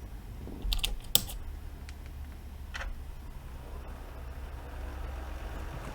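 A few sharp switch-like clicks, a cluster about a second in and one more near three seconds, over a low steady hum, as the car amplifier is powered from a 10 amp current-limited bench supply.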